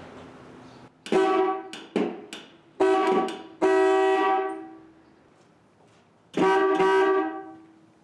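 Willys MB jeep's electric horn sounding five times at a steady pitch: three short honks, then a longer one, and a final longer honk after a pause of about a second and a half.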